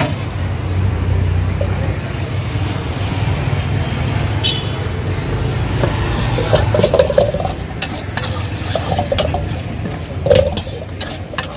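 Metal ladle stirring gobi manchurian in a steel wok on a gas burner, with frying sizzle and a steady low rumble underneath; from about six seconds in the ladle scrapes and clanks against the wok in quick, uneven strokes.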